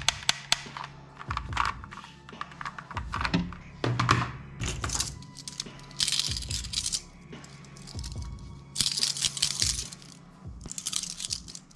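A few quick clicks from a toy pistol, then toy handcuffs rattling and clinking on their chain as they are handled and laid out, over background music.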